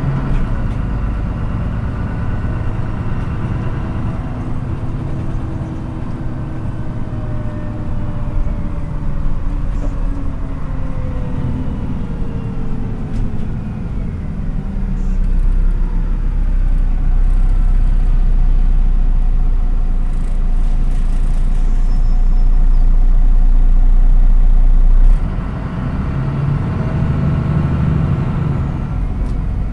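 Inside a moving MAN NÜ 313 bus, its inline-six diesel engine and driveline running. The engine note falls in the first half, then a low rumble grows louder for about ten seconds and drops off suddenly near the end, after which the engine note picks up again.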